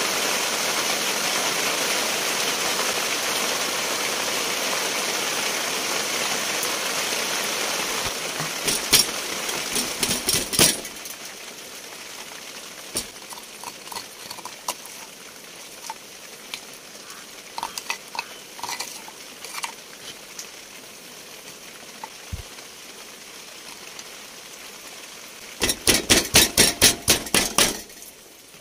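A steady hiss that stops abruptly about eleven seconds in, then scattered light clicks and knocks of kitchen work. Near the end comes a quick run of about ten strikes, roughly four a second: a pestle pounding ingredients in a mortar for chili paste.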